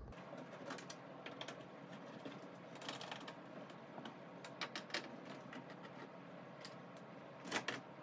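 Faint, irregular clicks and ticks of a hand screwdriver turning out Phillips screws on the top trim of a microwave's metal case, with a few louder clicks near the end.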